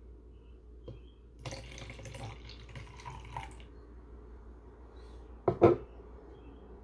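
Liquid poured from a small clear cup into a party cup, splashing for about two seconds; then two sharp knocks close together near the end.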